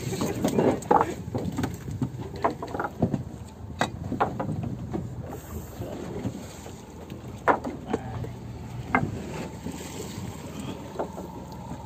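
Steady low rumble of wind on the microphone aboard a fishing boat, with a few sharp knocks and clicks from tackle handled on deck, the sharpest about four seconds in and again near seven and a half and nine seconds.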